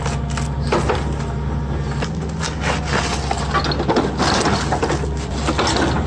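Hitachi excavator's diesel engine running steadily while wood cracks and splinters as stumps are split and sheared open, with repeated irregular sharp cracks.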